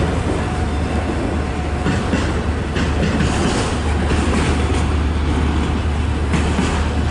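Norfolk Southern freight train rolling past at low speed: a steady rumble of steel wheels on the rails, with a few clacks over the rail joints.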